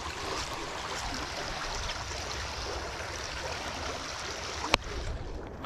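Water streaming and splashing through the mesh of a cast net as it is hauled out of a muddy creek, a steady rushing hiss that falls away near the end, with one sharp knock just before.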